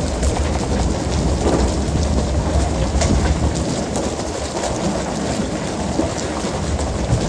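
Steady low rumble of a fishing boat under way, with a hissing wash of water over it and scattered small clicks and knocks from the deck.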